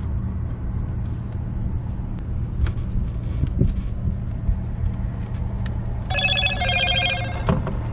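A steady low hum on a fishing boat, with a few light clicks, and an electronic ringing tone of several pulsing pitches that sounds for about a second and a half near the end.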